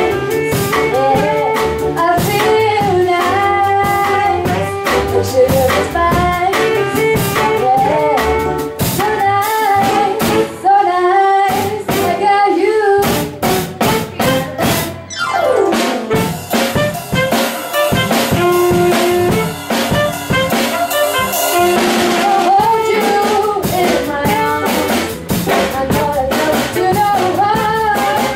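Live band playing through a PA: a woman singing over electric guitar, saxophone, bass guitar and drum kit, with a quick downward sweep about halfway through.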